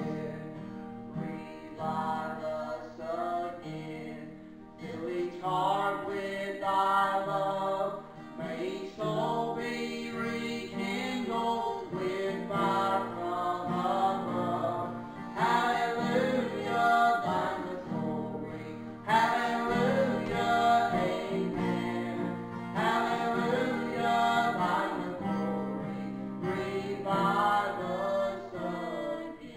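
A man and a woman singing a gospel song as a duet, accompanied by a plucked string instrument. The sung phrases come in lines a few seconds long, over steady instrumental accompaniment.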